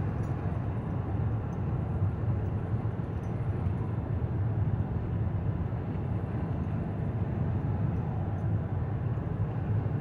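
Steady low rumble of road and engine noise inside a moving car's cabin, even throughout with no sharp events.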